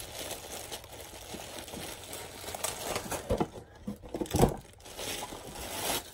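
Clear plastic packaging crinkling and rustling as a wrapped item is handled and unwrapped, with a couple of dull bumps from handling about three and four and a half seconds in.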